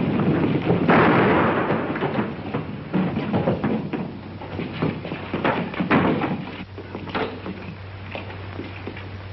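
Fistfight on an old film soundtrack: a loud crash about a second in, then irregular thuds, knocks and scuffling that die down near the end, over a steady low hum.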